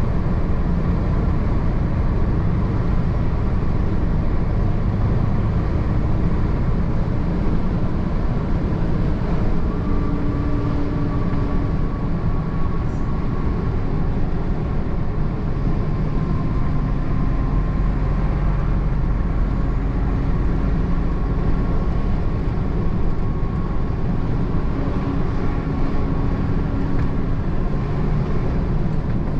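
Heavy truck driving, with a steady engine drone and road rumble. The engine note shifts to new pitches a few times as speed and gears change.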